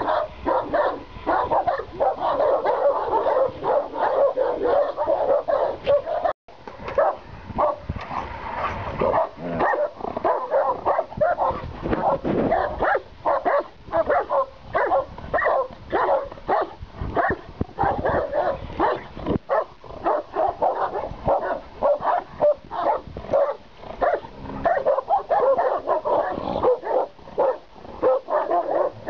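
Caucasian shepherd dogs barking over and over, about two or three barks a second, breaking off for an instant about six seconds in.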